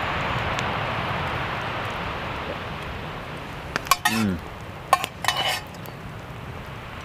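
Metal spoon clinking and scraping inside a metal camping cup: a few sharp clinks about four and five seconds in, with a short scrape between them.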